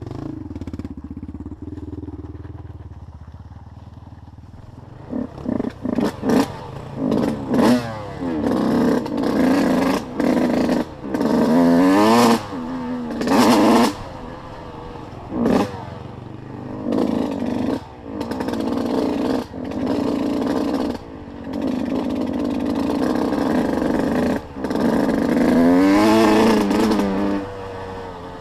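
Small off-road vehicle engine, low and steady at first, then revved in repeated bursts of throttle from about five seconds in. The bursts are short and quick at first, then become longer pulls with the pitch rising and falling as it climbs over rough ground.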